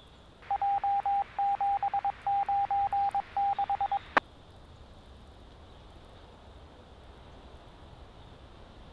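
Morse-code identifier tone on a police radio channel: one steady beep keyed on and off in long and short elements for about four seconds. It ends with a sharp click as the transmission drops, and then there is faint radio hiss.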